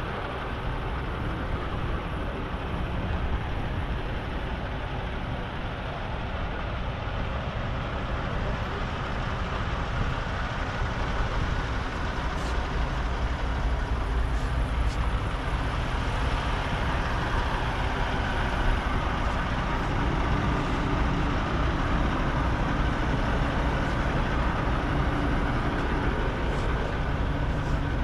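A motor vehicle running steadily: a constant low rumble of engine and road or wind noise, a little louder in the second half.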